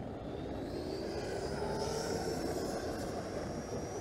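E-flite ViperJet's 90 mm electric ducted fan spooling up for a touch-and-go takeoff roll: a whine that rises in pitch over the first couple of seconds, then holds steady at power.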